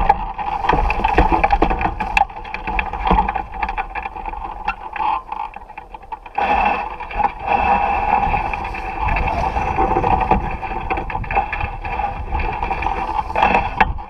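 Wind rushing over a wing-mounted action camera's microphone as a hang glider flies low over snow and lands. It drops for a couple of seconds about four seconds in, then rises again.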